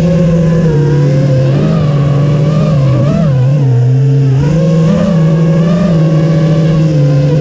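FPV drone's motors and propellers buzzing steadily. The pitch dips and rises as the throttle changes, lowest around the middle.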